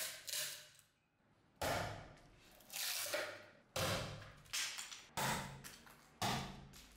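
Survival knife's steel blade chopping into a wooden plank: a series of sharp whacks, roughly one a second.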